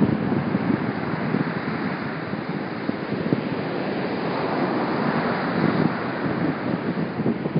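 Small ocean waves breaking and washing up the beach, with a light breeze buffeting the phone's microphone.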